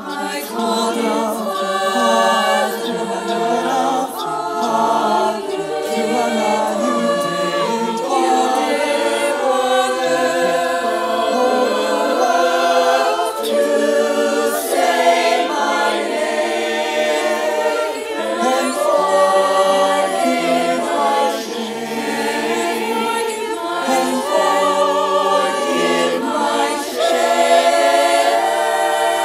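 Mixed-voice choir singing an a cappella ballad: many male and female voices holding and moving sustained chords in harmony, with no instruments.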